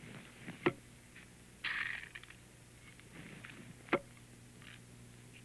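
A long wooden pestle pounding into a tall wooden mortar: two sharp knocks, about three seconds apart, with a short scraping rustle between them.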